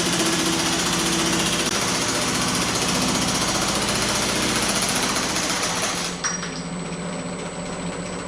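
Pullmax reciprocating sheet-metal machine running, its flanging dies chattering in rapid, even strokes on sheet steel. The hammering stops with a click about six seconds in, leaving a quieter steady hum.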